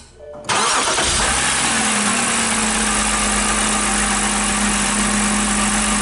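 BMW inline-six engine starting suddenly about half a second in and then running steadily. The engine has an intermittent misfire, which the coil-current capture traces to one ignition coil whose current ramp is much lower than the rest in every engine cycle.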